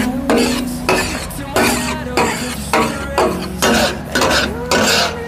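Two metal spatulas scraping and clanking on a large hot tawa griddle, chopping and mixing sizzling chicken kabab and masala. The strokes come about twice a second.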